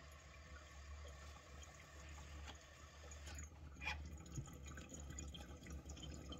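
Faint bubbling of water through a glass bubbler's percolators as vapour is drawn through it. A small metal click about four seconds in, as the vaporizer's carb cap is lifted off the bowl.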